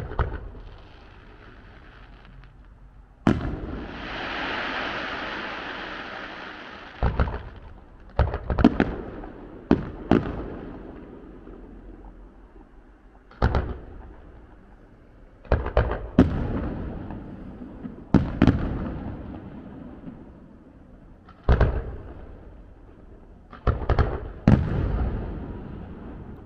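Distant fireworks display: a dozen or more sharp bangs of shells bursting at irregular gaps, some in quick pairs, each trailing off in a rolling echo. A hiss runs for about four seconds after a bang a few seconds in.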